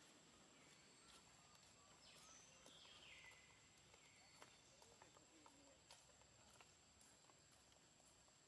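Near silence: faint outdoor ambience with a thin steady high-pitched tone, a few faint clicks and a soft falling sweep a couple of seconds in.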